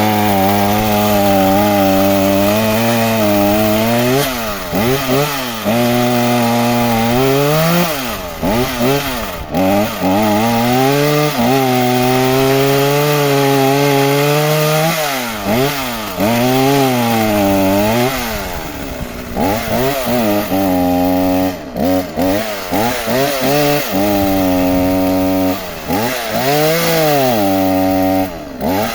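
Two-stroke chainsaw running at high revs while cutting firewood, its engine pitch repeatedly dropping as the chain bogs down in the wood and climbing back as it frees up.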